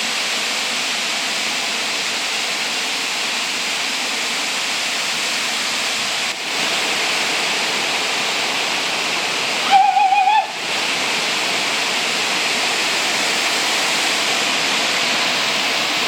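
Waterfall's steady rush of falling water. About ten seconds in, a short, loud, wavering high call cuts through for under a second.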